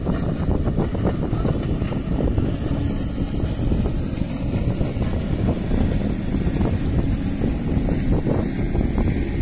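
Wind buffeting the microphone: a steady low rumble with irregular gusty rushes.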